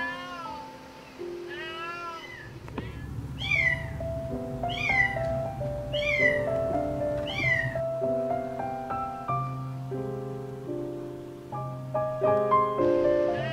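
Cat meowing repeatedly: a few calls near the start, then a run of four evenly spaced, high, falling meows in the middle, all over background music of sustained notes.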